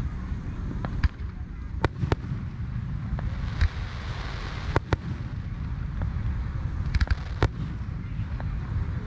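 Aerial fireworks shells bursting: sharp bangs at irregular intervals, about one a second with some in quick pairs, over a steady low rumble. A brief hissing spell comes around the middle.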